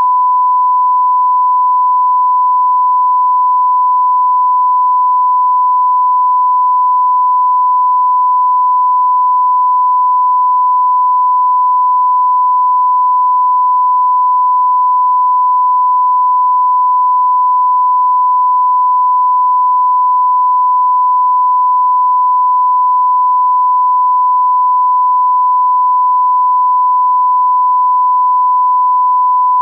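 Continuous 1 kHz sine-wave test tone: a single pure pitch held steady at constant level without a break. It is the line-up tone that goes with a television test card.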